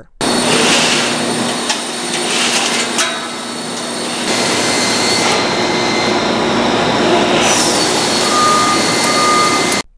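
Steel web conveyor chain being pulled through a spreader's steel body, a steady metallic rattling and scraping with scattered clicks that cuts off suddenly near the end.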